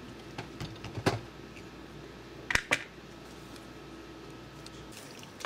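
Glass slow-cooker lid lifted off the crock, then a plastic spatula knocking and scraping against the stoneware pot while stirring ground beef. A few sharp clicks, the loudest about a second in and two close together near the middle, over a faint steady hum.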